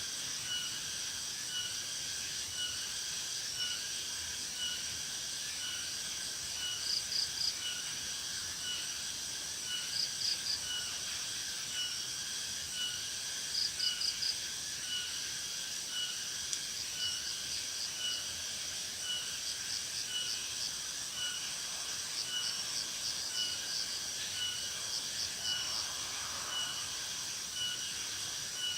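Insects chirping in several steady high layers, one of them a regular pulsing chirp. Short, quick, high trills come every few seconds and grow more frequent in the second half.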